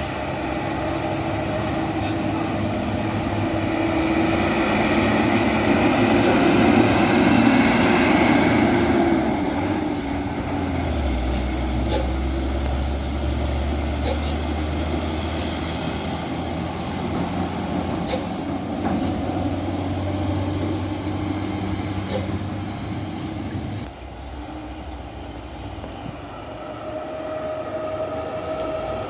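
Heavy dump truck diesel engines working on a steep hill road, loudest about seven seconds in, with a deeper engine note taking over around eleven seconds. The level drops suddenly about five seconds before the end.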